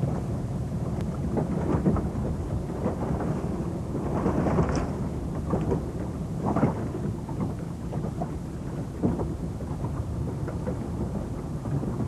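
Steady low rumble with irregular splashes and gusts, as from a tour boat under way on the sea.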